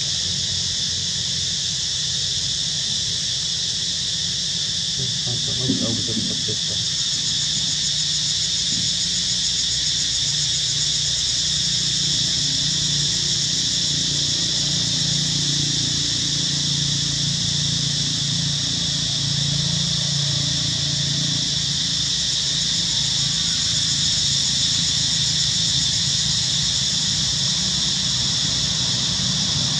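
Steady, unbroken insect chorus, high-pitched and continuous, over a low steady hum, with one brief click about six seconds in.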